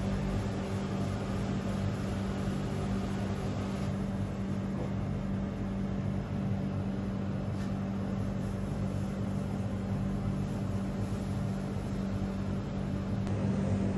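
A steady mechanical hum with a low drone that holds an even pitch throughout.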